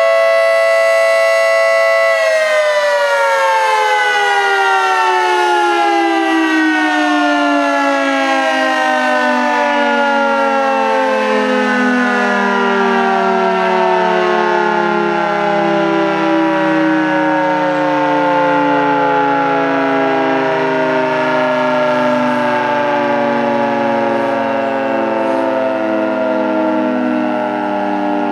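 Federal Signal 3T22 dual-tone civil-defence (tornado) siren sounding a steady two-note chord for about two seconds, then the drive cuts and the chord slowly falls in pitch as the rotor winds down at the end of the test.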